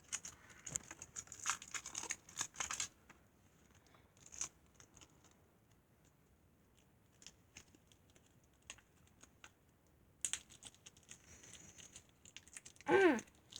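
A plastic Lego minifigure blind bag being crinkled and torn open by hand, in two bursts of crackling with small clicks and rustles between. Near the end comes a short voice sound that falls steeply in pitch.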